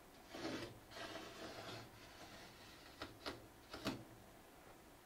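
Razor blade scoring the overhanging edge of a thick PEI build sheet: two scraping strokes in the first two seconds, then three short, sharp scrapes about three to four seconds in.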